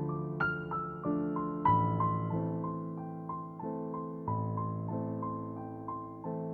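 Background music: soft, slow piano, single notes over sustained bass tones.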